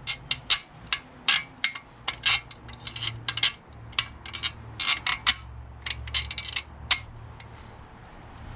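Irregular sharp metal clinks and rattles as a metal sand scoop is handled and a bolt is worked through its holes, over a low steady hum.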